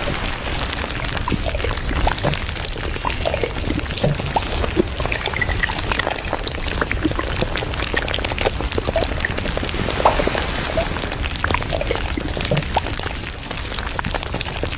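Water: a steady wash of liquid sound with many small drips and plops scattered through it.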